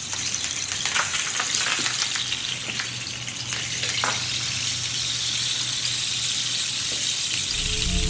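Rain sticks being tipped and played: a steady rushing patter of small pellets falling inside the tubes, like rain.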